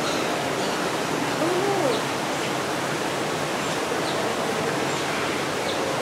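Steady rushing background noise with no clear rhythm, and one short call that rises and falls in pitch about a second and a half in.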